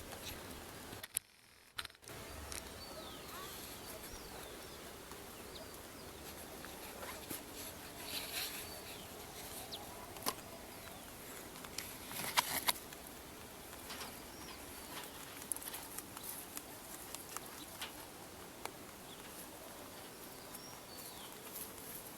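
Wild birds calling with short, scattered chirps over a steady outdoor background, with occasional brief clicks or rustles.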